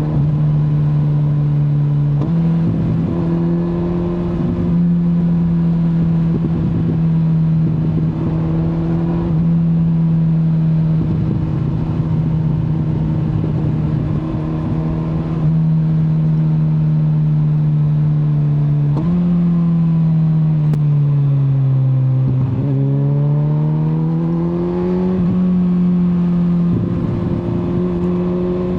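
Kawasaki Z900's inline-four engine running at fairly steady revs while riding, with small steps in pitch; near two-thirds through the revs fall for a few seconds, then climb again as it accelerates. Wind rush on the microphone lies beneath the engine.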